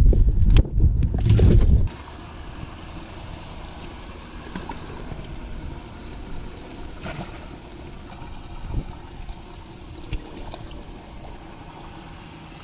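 Water from a bass boat's livewell aerator spraying and trickling into the livewell, steady, with a few small knocks and splashes as hands work in the water. Before it, a loud low rumble stops abruptly about two seconds in.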